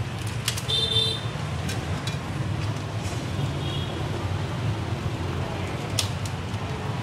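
Street traffic rumbling steadily, with a short horn toot about a second in, a fainter tone a few seconds later, and a few sharp clicks.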